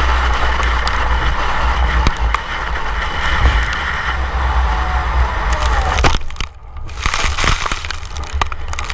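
Onboard sound of a race car running flat out, a steady rumble with scattered clicks. About six seconds in comes a sharp knock, the sound drops away briefly, then a rapid run of knocks and crackles as the cars collide and one rolls off the track in the dirt.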